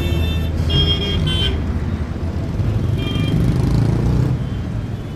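Roadside traffic noise: vehicle engines running with a steady low hum, and brief high horn toots about a second in and again around three seconds in.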